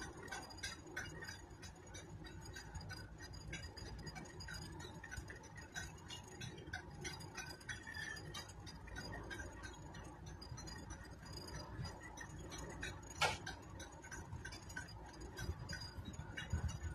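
Low steady rumble with many small, scattered clicks and ticks, and one sharper click about thirteen seconds in.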